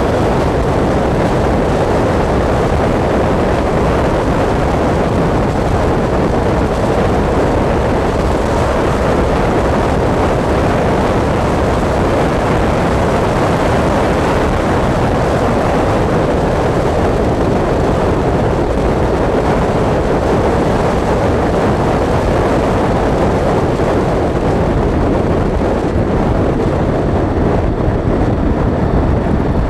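Motorcycle riding along at steady speed: engine and wind rush over the camera blend into one loud, steady noise with no distinct engine note.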